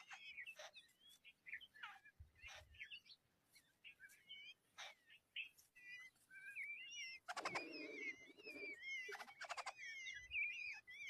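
Small birds chirping: many short, wavering high-pitched calls, with a rasping burst and a quick pulsed rattling call about two-thirds of the way through.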